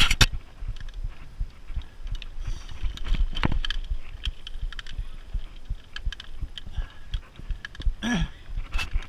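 Mountain bike rolling over a dirt forest trail: the bike and the handlebar camera mount rattle and knock with many sharp clicks over a low rumble. A brief low falling tone sounds near the end.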